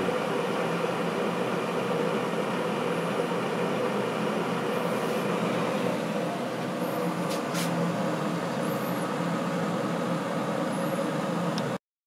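Bosch glass electric kettle heating about 1.5 litres of water close to the boil: a steady hiss and rumble of the water, quiet for an electric kettle.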